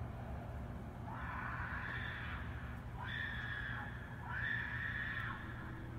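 Three long screams in a row, each about a second or more, sounding like a woman shrieking, over a steady low hum. They come from an unseen animal that the narrator suggests may be a mountain lion, though this is not confirmed.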